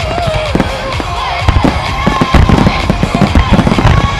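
Starmine fireworks: many aerial shells bursting in rapid succession, a dense run of booms and crackles, over a loud pop song with a woman singing.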